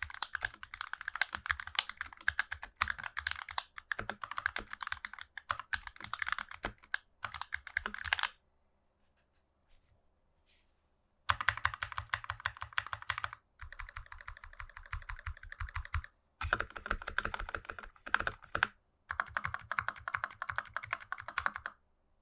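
Fast typing on an NK65 mechanical keyboard with Matrix Lab JWK FFF switches and GMK Nines keycaps: a dense clatter of keystrokes that stops for about three seconds near the middle, then resumes in several runs with short breaks between them.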